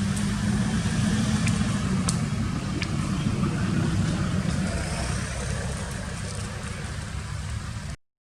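A motor vehicle's engine running, a steady low rumble with a hum that eases off a little after about five seconds. The sound cuts out to silence for a moment near the end.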